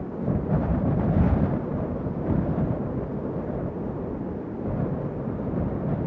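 Strong wind blowing in gusts with a deep rumble, swelling to its strongest about a second in and easing off after.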